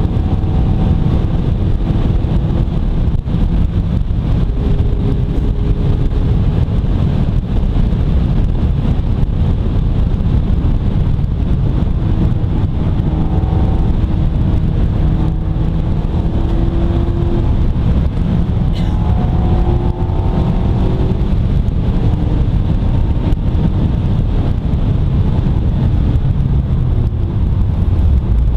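Mazda MX-5 ND's 1.5-litre SkyActiv-G four-cylinder engine driving along, its note rising and falling with the throttle, over a steady low rumble of wind and road noise in the open cockpit.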